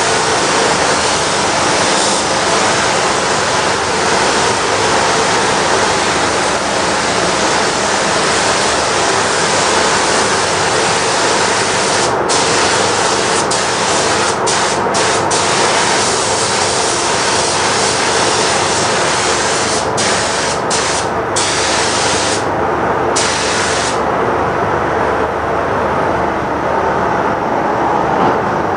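Compressed-air paint spray gun hissing steadily as clear coat is sprayed onto a plastic car bumper. The hiss breaks off briefly several times in the middle as the trigger is let off. Near the end the high hiss fades, leaving a lower steady rush of air.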